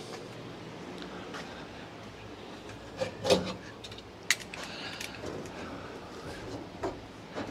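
A few short, scattered knocks and clicks of PVC pipe and fittings being handled on a seat frame, with light rubbing between them.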